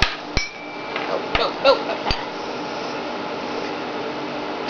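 Glass and small hard objects being handled: about five sharp clinks and knocks in the first two seconds, one ringing briefly like a glass test tube, then only a steady low room hum.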